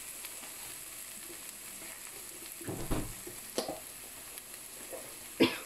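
Onion, tomato and spice-powder masala sizzling gently in a nonstick pan, a steady faint hiss. About three seconds in comes a low thump and a couple of sharp knocks, with another short knock near the end.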